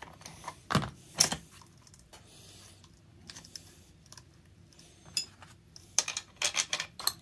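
Metal clicks and clinks from a Poulan Super 31 chainsaw's bar, chain and bar nut being handled and fitted onto the saw. There are two sharp clicks about a second in, then a quick run of small clicks near the end.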